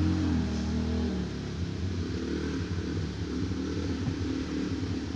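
Off-road vehicle's engine heard from inside the cab, running under load on a steep muddy climb, its pitch rising and falling as it revs.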